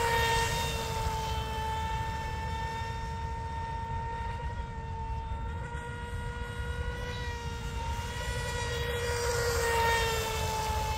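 Electric whine of the Mini Mono RC boat's brushless motor (Rocket 2948, 3450 kV) running at high speed, a steady high-pitched tone over a low rumble. It grows louder and its pitch drops a little as the boat passes close, about a second in and again near the end.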